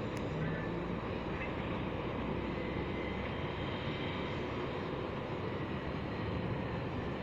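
Steady distant rumble of heavy open-cast coal-mine machinery, an even noisy drone with a faint low engine hum near the start.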